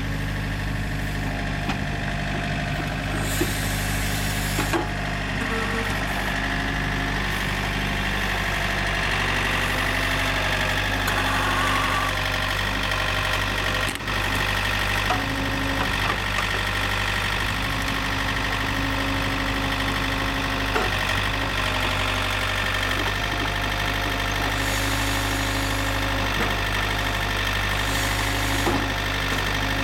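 Yanmar LX450 backhoe's engine running steadily at a constant speed, with a few small knocks now and then.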